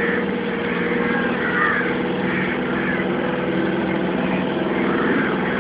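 A boat's engine running steadily, an even drone, with a few faint high chirps over it.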